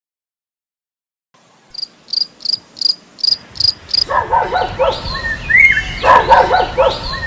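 Cricket chirping used as a comedy 'awkward silence' sound effect after a moment of dead silence: seven short high chirps, evenly spaced at about three a second. About four seconds in, a louder jumble of pitched animal-like calls and rising, sliding whistles takes over.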